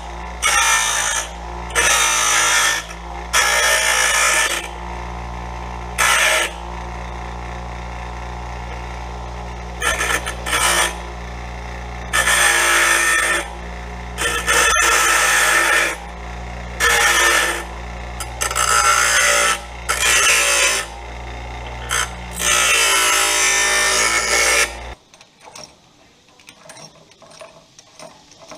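Delta bench grinder running with a steady motor hum while small metal faucet-mounting washers are pressed against the wheel again and again, about a dozen short grinds of a second or so each, taking the corners off so they fit the holes. Near the end the grinder sound cuts off, leaving only faint handling sounds.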